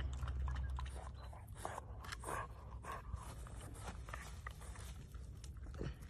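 French bulldog puppy chewing on something, a run of small irregular crunches and clicks.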